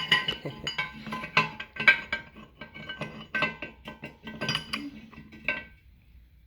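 Rapid metallic clinking of small metal parts knocking together, each strike leaving a short ringing tone. The clinking stops abruptly about six seconds in.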